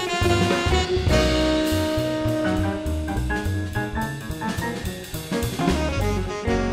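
Small jazz combo playing live: drum kit, bass, piano and saxophone together, with held horn-like notes over a steady drum pattern.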